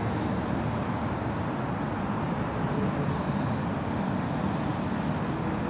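Steady city street traffic noise: a continuous low rumble with no distinct events.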